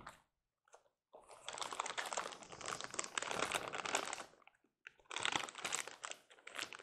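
Clear plastic bag crinkling as it is handled and pulled off a model locomotive by hand, in two spells of a few seconds with a short pause between.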